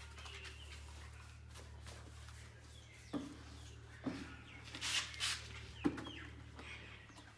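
Birds clucking and calling in short bursts, with sharp knocks about three, four and six seconds in as a paintbrush is dipped into a plastic paint bucket. A low steady hum runs underneath.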